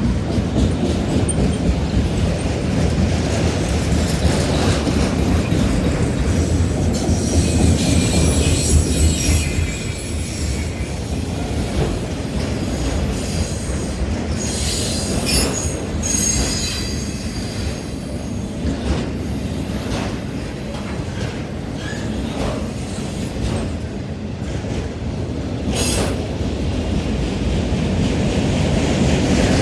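CSX freight train's cars rolling past with a steady rumble of wheels on rail. High-pitched wheel squeal comes in twice, about seven to ten seconds in and again about fourteen to seventeen seconds in. Scattered sharp clicks from wheels crossing rail joints are heard throughout.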